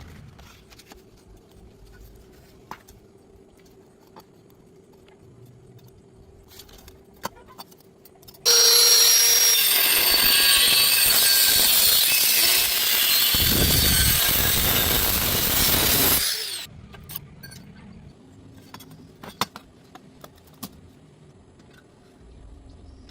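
Power tool cutting metal pipe for about eight seconds, starting abruptly and dying away with a falling whine as it stops. Light clicks and taps before and after.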